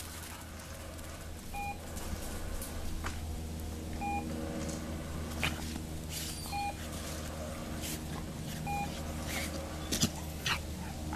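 Four short electronic beeps about two and a half seconds apart, each a two-note tone, from the remote training collar used to page the dog. A few faint knocks fall between them.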